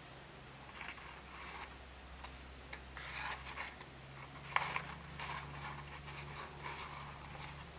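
Faint rustling and crinkling of folded origami paper as it is handled and pressed into a puffy heart shape, with a few crisp crackles, the sharpest about four and a half seconds in.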